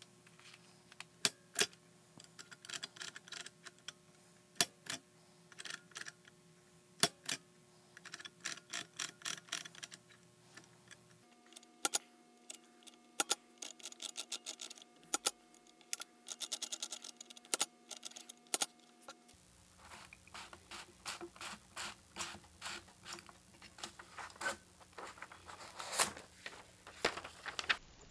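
Louis Marx dial toy typewriter being operated: irregular runs of sharp mechanical clicks and clacks from its mechanism, in three separate takes with the background hum changing between them.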